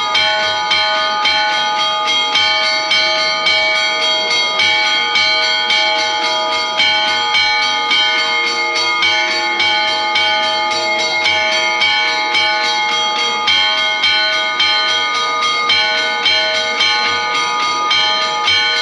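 Several church bells ringing together in a quick, continuous festive peal, each bell struck again and again so the tones keep ringing over one another.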